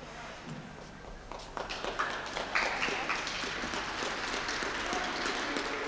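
Scattered hand clapping from a small audience, starting about a second in and growing denser.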